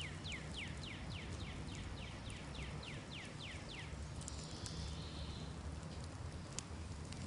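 A bird singing a fast run of high down-slurred notes, about four a second, that stops about four seconds in. Scattered faint clicks and a brief hiss come from the smouldering, ember-covered pine tree.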